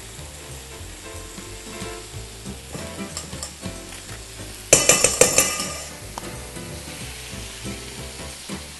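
Metal spoon scooping avocado flesh over a stainless steel mixing bowl. About five seconds in comes a quick run of about six sharp metallic knocks, spoon against bowl, with the bowl ringing briefly after them.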